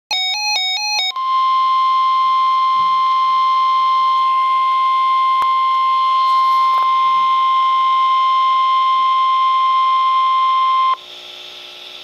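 Handheld NOAA weather radio sounding a warning alert through its speaker: about a second of quick alternating beeps, then the steady 1050 Hz Warning Alarm Tone, which stops suddenly near the end, leaving faint radio hiss. The tone signals that a weather warning broadcast follows.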